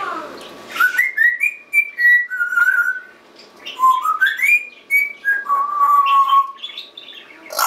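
Congo African grey parrot whistling a string of clear notes that glide up and down in pitch, mostly short notes with one longer held note near the end.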